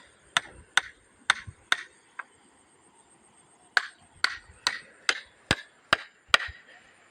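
Sharp blows of a hand tool, struck at about two a second: four strong blows and a lighter one, a pause of about a second and a half, then seven more.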